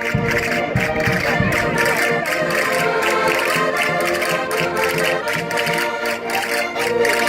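Concertinas playing a lively Portuguese folk dance tune from the Minho with a steady beat, with a few low thumps in the first second and a half.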